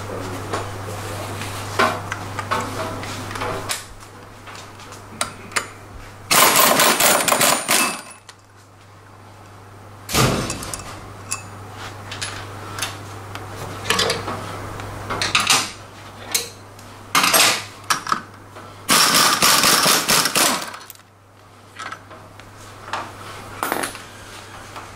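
Metal tools clinking and knocking on a scooter's exposed belt drive and the workbench. Twice a pneumatic tool runs in a burst of rapid rattling impacts lasting about two seconds; these bursts are the loudest sounds.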